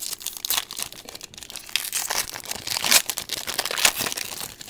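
A Topps Chrome trading-card pack wrapper being torn open and crinkled by hand, in a run of sharp crackles.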